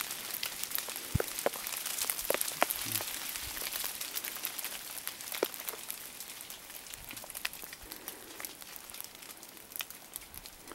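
Steady fine pattering of falling drops, with many scattered sharp ticks, fading slowly towards the end.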